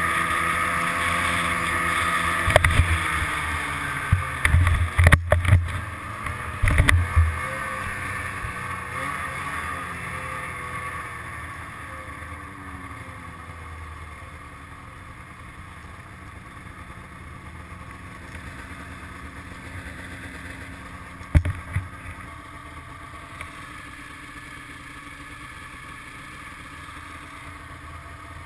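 Snowmobile engine running at trail speed, with several heavy thumps a few seconds in. It then eases off, the engine note falling as the sled slows, and settles to a quieter low run near idle; one more thump comes later.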